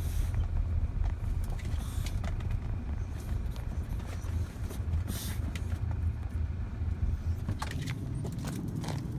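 Car driving, a steady low road and engine rumble heard from inside the cabin, with scattered small clicks and rattles.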